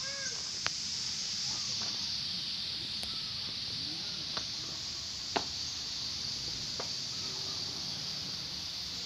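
Steady high-pitched drone of insects, with faint distant voices and a few sharp clicks, the sharpest about five seconds in.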